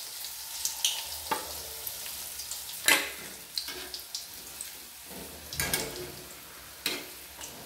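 Chicken pakoras in batter deep-frying in hot oil in an aluminium kadai, a steady sizzle. A metal spatula knocks and scrapes against the pan several times, loudest about three seconds in.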